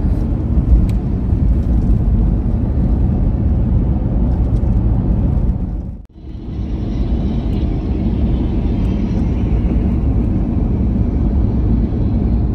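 Lexus GX470 driving on the road: a steady low rumble of road and engine noise. About six seconds in the sound drops out for a moment and returns with more hiss.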